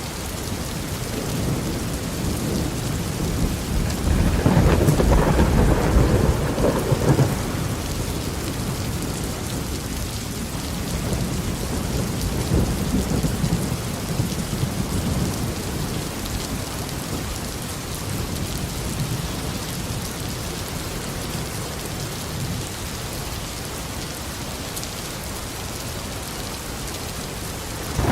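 Heavy tropical rain falling steadily on a garden, with rolling thunder: a loud low rumble swells about four seconds in and fades after about three seconds, and a weaker rumble follows in the middle.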